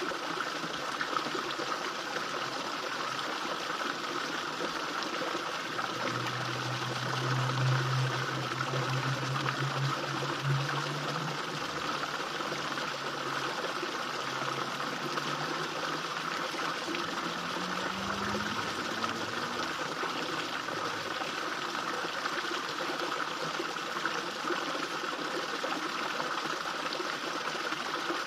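Small waterfall splashing and trickling steadily into a garden fish pond. A low hum comes in about six seconds in and fades after about five seconds, and a faint rising tone sounds about eighteen seconds in.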